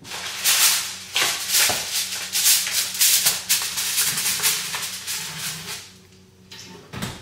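Crinkling aluminium foil and a baking dish being handled as a foil-covered pan goes into the open oven: a loud, irregular crackly rustle for about six seconds that then dies away.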